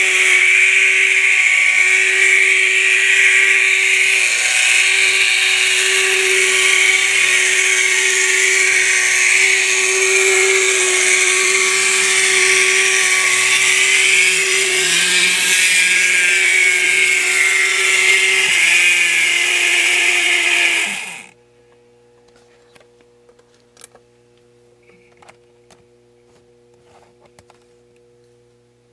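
A 1960s Lindberg HO switch engine's small electric motor and worn gear and belt drive running loud, with a high whine that wavers in pitch; the motor bearings are worn. About 21 seconds in it stops suddenly, leaving only a faint hum.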